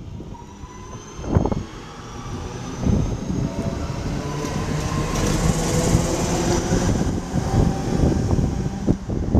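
Class 323 electric multiple unit pulling away past the platform, its traction motors giving a faint whine that rises in pitch as it gathers speed, over the rumble of the wheels on the rails and growing louder.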